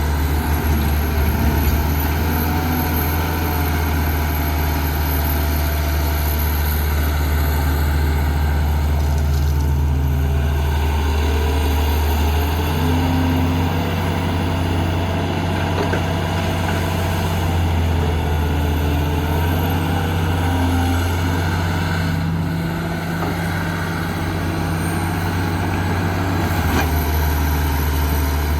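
Heavy diesel engine of construction machinery running steadily, its pitch stepping up or down a few times.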